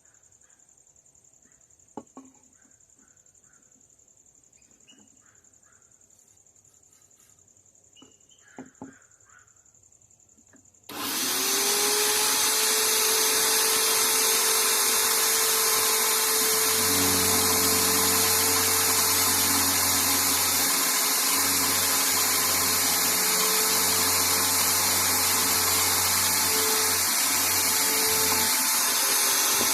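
A few light clicks, then an electric hand drill mounted as a bench drill switches on about eleven seconds in, whines up to speed and runs steadily. A deeper hum joins partway through and stops shortly before the end.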